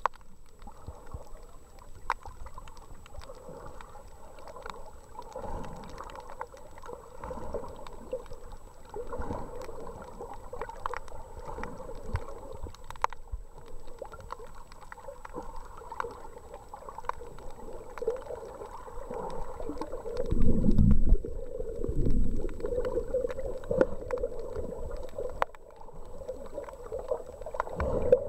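Muffled underwater sound heard through a submerged camera: gurgling, sloshing water with scattered small clicks and crackles and a faint steady high tone. About twenty seconds in, a few loud low rumbling thumps stand out as the loudest part.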